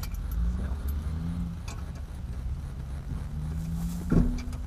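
Lug nuts being worked off a car wheel by hand, giving a few light metallic clicks and a louder knock about four seconds in, over a steady low rumble.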